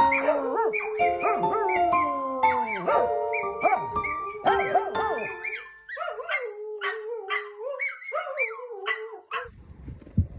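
Music with dogs howling and yelping over it: many short rising and falling cries over held notes, thinning out after about six seconds.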